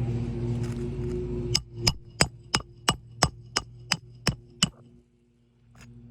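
Hammer driving a roofing nail into an asphalt shingle: about ten quick, even strikes, roughly three a second, each with a short metallic ring. A steady mechanical hum runs underneath and is loudest in the first second and a half.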